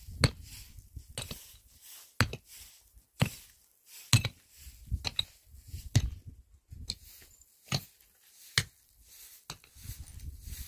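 Short-handled pick striking hard, stony earth in repeated blows, about one a second, each a sharp chunk with quiet between.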